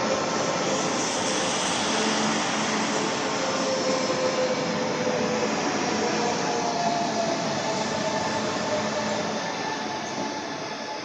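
Renfe electric trains, a Cercanías Series 447 unit and a Series 121, passing close by at speed: a steady rush of wheels on rail with a faint thin squeal, dying away near the end.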